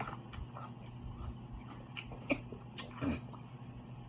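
Close-up eating sounds: quiet chewing with scattered wet mouth clicks and smacks, a couple of sharper ones a little after two seconds in.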